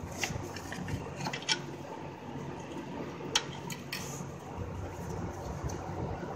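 A few sharp metallic clicks and clinks of hand tools and fittings being handled on the A/C compressor and lines under the car, over a steady low hum.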